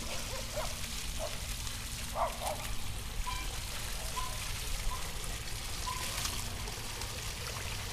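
Small backyard rock-garden waterfall, water trickling and splashing steadily over stones.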